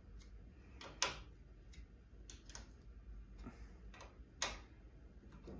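A 7/32 Allen key turning the screws of a bow-vise table clamp: scattered light clicks of the key against the screw heads, the two sharpest about a second in and near four and a half seconds.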